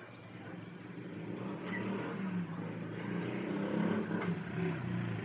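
A motor vehicle engine running with a low hum that wavers in pitch and grows louder over the first few seconds, then holds.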